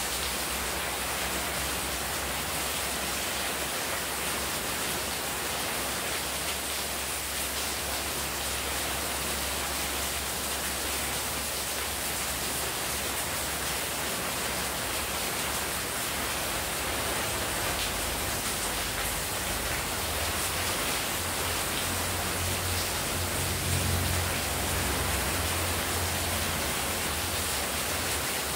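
Heavy rain falling as a steady, even hiss, with runoff pouring off the roof edge and splashing onto the tiled floor and potted plants. A low rumble swells in the second half.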